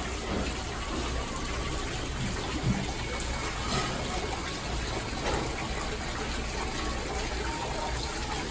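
Water from a rock fountain trickling and splashing steadily into a koi pond.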